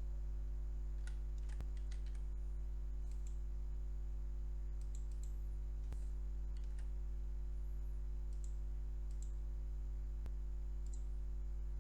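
Steady low electrical hum with a ladder of overtones, under scattered light computer clicks, some singly and some in quick little clusters.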